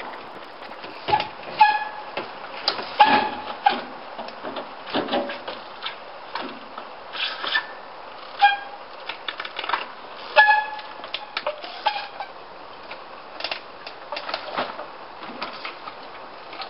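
26-inch Limey 3 trials bike hopping on stacked wooden pallets: repeated sharp knocks of the tyres and wheels landing on the wood, with several short pitched squeals from the brakes biting as the wheels lock.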